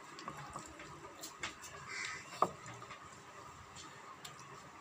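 Quiet eating sounds of rice being mixed and scooped by hand from steel plates: scattered small clicks and ticks of fingers against the metal, with one sharper click about two and a half seconds in.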